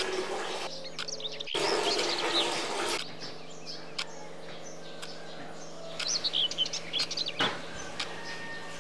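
Small birds chirping in short bursts, a second or so in and again from about six to seven and a half seconds, over a steady low hum. Water runs from a tap at the start as a rushing noise, and a few sharp clicks break in.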